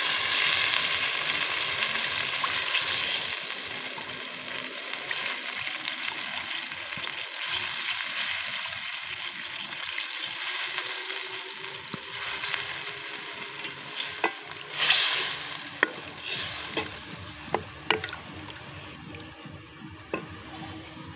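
Chicken curry sizzling in a metal pot while a wooden spoon stirs and scrapes through it; the sizzle fades after the first few seconds. In the second half the spoon knocks sharply against the pot several times.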